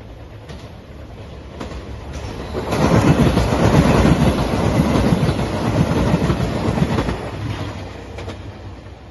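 JR Shikoku 2700 series diesel limited express passing at speed: it grows louder as it approaches, is loud for about four seconds as the cars go by, then fades away.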